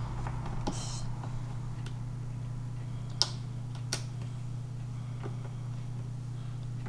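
A few light clicks and taps as small figurines are handled and set down on a wooden desk, the sharpest about three seconds in, over a steady low hum.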